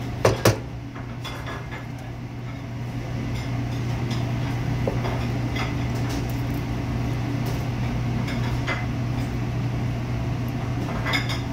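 Chef's knife knocking and scraping on a cutting board while slicing pork loin: two sharp knocks about half a second in, then lighter scattered taps every second or two. A steady low hum runs underneath.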